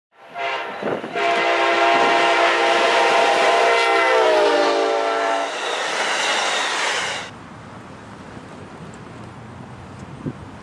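Locomotive air horn sounding one long chord that bends down in pitch near its end, followed by the noise of the train rolling past. The train noise cuts off suddenly at about seven seconds, leaving a quieter background.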